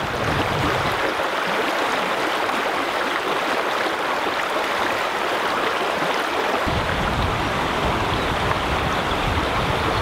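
A shallow stream rushing steadily over stones and gravel riffles. About two-thirds of the way through, a low rumble joins underneath it.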